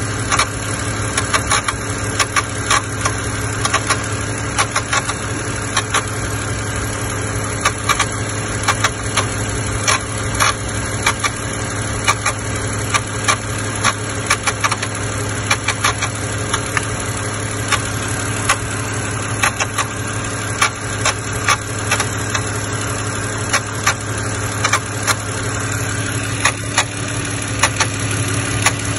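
BMW petrol engine idling steadily, with a fast, irregular ticking and clicking on top of the hum. This is the unexplained engine noise whose source has not yet been found.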